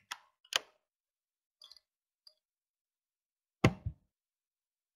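A few short clicks and faint ticks, then a louder double knock about three and a half seconds in, with silence between them.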